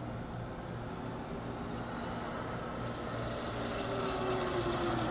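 Chain-driven electric motorcycle with a 3000 W QS Motor 138 mid-drive motor riding up and passing close by. Its whine grows louder near the end and falls in pitch as it goes past, over rising chain and tyre noise.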